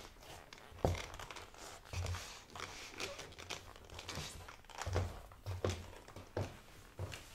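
Boot footsteps on a hard floor: a steady walk of heel strikes, each with a low thud, about one step a second.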